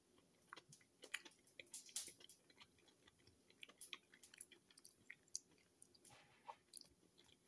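A person chewing food with the mouth closed: faint, irregular crunches and wet mouth clicks.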